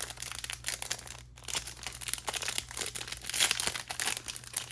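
Wrapper of a Panini Select basketball card pack crinkling and tearing as it is ripped open by hand, a dense run of crackles.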